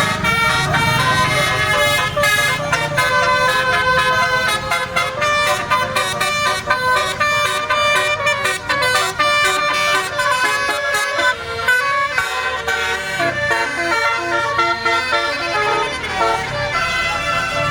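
Bus telolet horn of the basuri type playing a long, quick run of multi-tone notes that jump up and down in pitch, like a tune.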